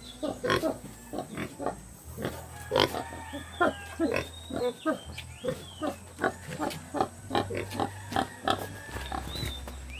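Two pigs grunting over and over in short, quick grunts, two to three a second.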